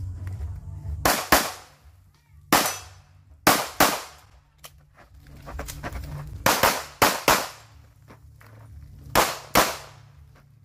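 .45 calibre pistol fired in a rapid string of about a dozen shots, mostly in quick pairs with short gaps between groups, as in a practical-shooting course of fire.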